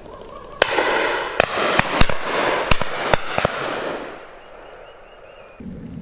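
Shotguns firing on a driven game shoot: about seven sharp shots in under three seconds, some loud and close and others more distant, over a rushing noise that dies away soon after the last shot.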